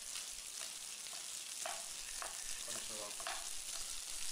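Chicken pieces sizzling in hot oil in a frying pan that is being tossed to mix them, with a few brief scraping sounds of the food sliding in the pan.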